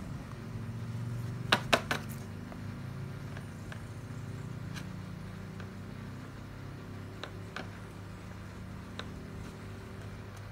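Plastic scoop knocking and scraping against a small plastic plant pot while potting mix is spooned in and levelled: three sharp knocks about one and a half to two seconds in, then a few lighter ticks, over a steady low hum.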